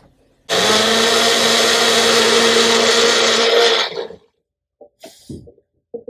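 Electric kitchen blender running steadily for about three and a half seconds, switching on abruptly about half a second in and cutting off near the end.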